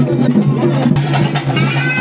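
Loud reed-pipe music of the kind played at a bhuta kola ritual: a wavering, gliding melody over a steady drone.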